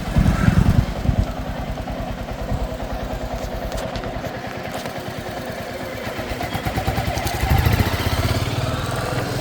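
Royal Enfield Classic 350's single-cylinder engine running with a steady fast exhaust thump, revved up briefly right at the start and again about seven and a half seconds in.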